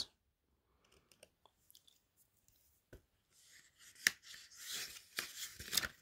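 Near silence for about four seconds, then faint clicks and paper-like rustling as a hand takes hold of a picture book's page to turn it.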